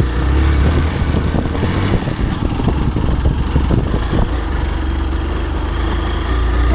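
Hero Xpulse 200's single-cylinder engine running at idle with a steady low throb, turning uneven and rougher for a few seconds in the middle.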